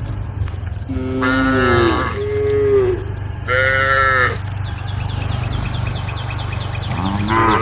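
Cows mooing: a call about a second in, two more in quick succession, and another starting near the end. Between the calls comes a rapid, repeated high chirping, over a steady low hum.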